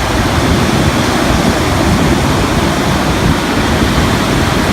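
Steady, loud rush of ocean surf and wind, an unbroken noise.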